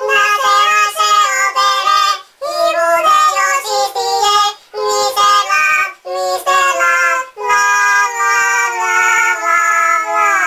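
A high-pitched voice singing a melody in several held phrases with short breaks between them, the last note sliding down in pitch as it ends.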